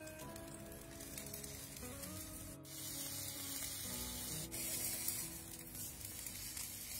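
Chicken thigh sizzling on a hot grill grate, a steady hiss, with background music underneath.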